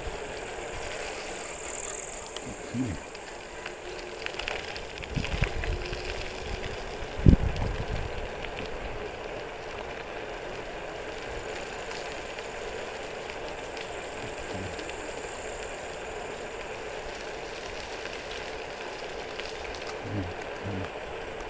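Steady wind and road noise of a bicycle ride, with a few soft knocks and one sharp thump about seven seconds in.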